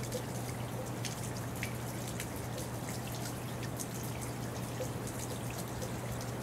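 Rain falling, with scattered drops ticking close by, over a steady low hum.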